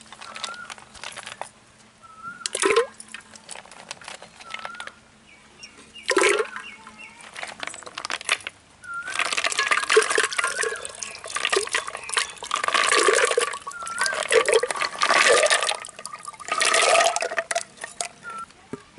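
Live snails and their water being poured from a bowl into a clay pot of water: two short splashes, then a longer pour in several surges of splashing through the second half.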